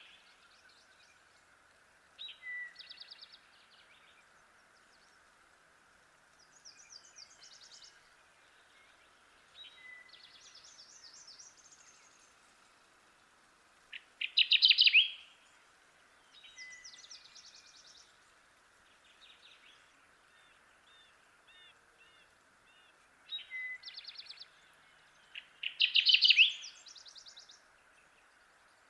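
Kirtland's warbler singing: two loud, rapid song phrases of about a second each, roughly eleven seconds apart, with fainter song phrases between them over a steady faint hiss.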